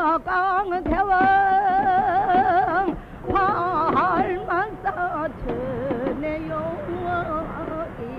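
A female shaman singing a muga (shaman ritual song) in a wide, wavering vibrato, with a few sharp drum and gong strokes under the voice.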